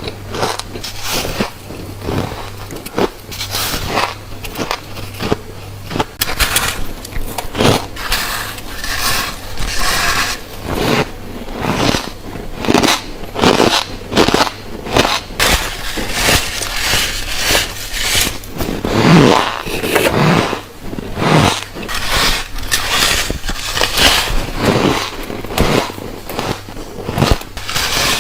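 Close-up crunching of bites of refrozen white freezer frost being chewed, a crisp crunch with each bite, one or two a second.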